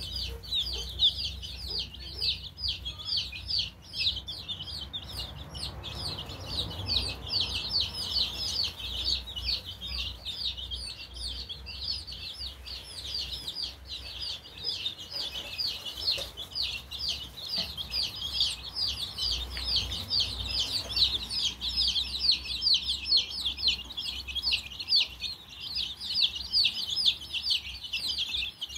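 A flock of young chicks peeping nonstop: many short, high, downward-sliding peeps overlapping several times a second.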